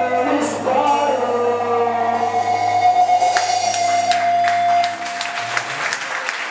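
Rock band of electric guitars, bass guitar and drum kit letting a final chord ring out, with cymbal crashes and drum hits coming in over it about halfway through as the song ends.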